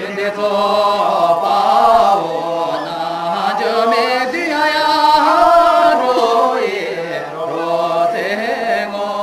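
Voices singing together in a slow, chant-like dance song, long held notes gliding from pitch to pitch over a steady low tone.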